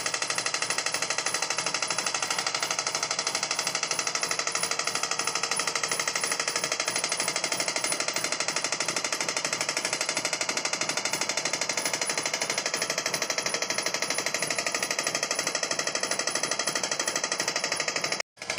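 Old single-cylinder piston air compressor running on its electric motor, the pump pounding in a fast steady beat as it builds pressure in the tank. The sound cuts out for an instant near the end.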